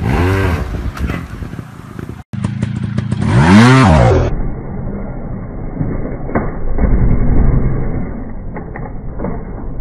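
Trials motorcycle engine blipped in short revs that rise and fall in pitch, as the bike is hopped up rocks. The loudest rev comes about three and a half seconds in. After that the sound turns duller, with lower rumbling revs.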